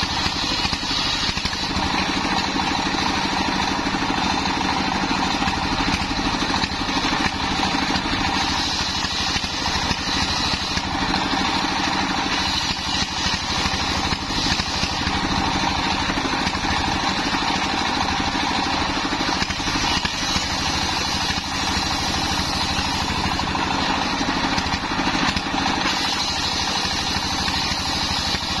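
Homemade circular saw driven by a belt from a single-cylinder diesel engine, running steadily while a plank of waru wood is ripped lengthwise. The engine's rapid chugging runs under the saw blade's cutting noise, with no pauses.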